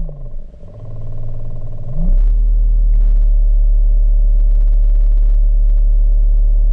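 Electric thruster motors of a home-built underwater ROV, heard underwater through the onboard camera's housing: a steady hum whose pitch drops sharply at the start and stays low for about two seconds, then rises back about two seconds in and holds steady.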